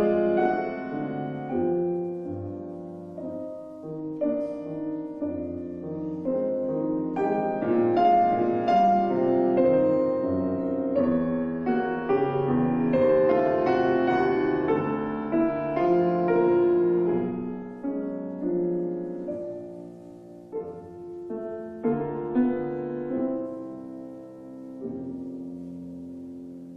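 Solo piano playing a slow, romantic piece on an 1864 Julius Blüthner grand, louder through the middle and dying down to softer chords near the end.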